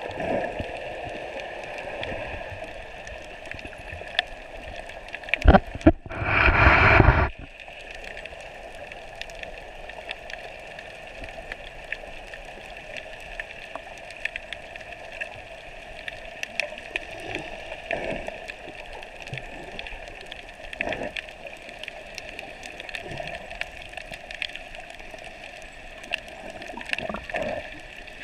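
Underwater sea ambience: a steady muffled water hiss with scattered faint clicks. About six seconds in, a loud rush of water noise lasts over a second, just after two sharp knocks.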